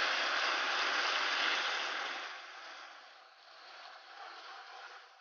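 Hot caramelized sugar in a frying pan hissing and boiling up hard with water just added, easing to a quieter bubbling about two seconds in as it is stirred with a wooden spatula.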